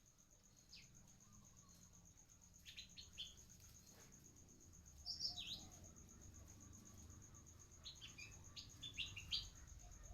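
Faint songbird chirps: short, sharp high calls in small clusters. There are a few in the first three seconds, a falling call about halfway through and a quick run of them near the end, all over a steady high-pitched whine.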